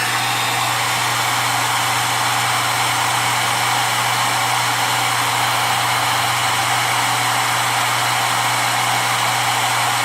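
Hand-held hair dryer running steadily on its high, cool setting: a loud, even rush of air over a low motor hum.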